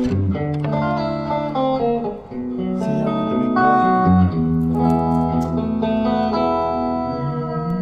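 Background music led by plucked guitar, with a melody over a steady bass line.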